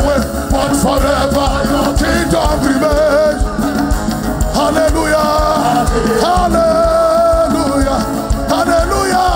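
Live worship music: a band playing a steady beat under sung, drawn-out melodic notes.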